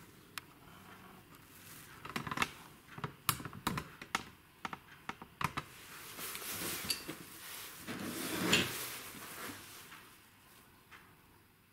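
Clatter of tools and plywood blanks being handled on a wooden workbench, with a steel ruler being laid out: a run of small clicks and knocks, then a brief sliding scrape about two-thirds of the way in.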